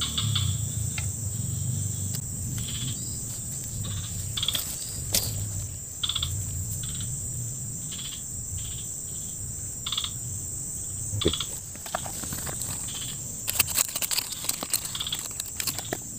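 Insects drone steadily at a high pitch, with short chirps repeating irregularly about once a second. A cluster of sharp clicks comes near the end.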